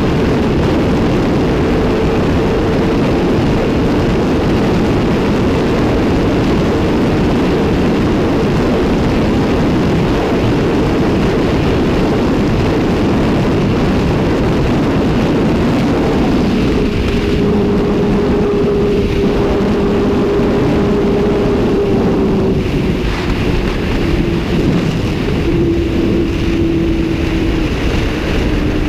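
Sport motorcycle engine running at steady high revs, heard under heavy wind rush at speed. Over the last dozen seconds the engine note steps and slides gradually lower as the bike eases off.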